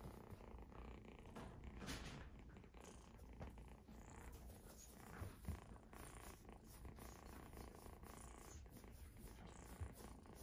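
Faint purring from an exotic shorthair kitten, a steady low rumble, with a few soft crinkles of a tinsel toy being batted about.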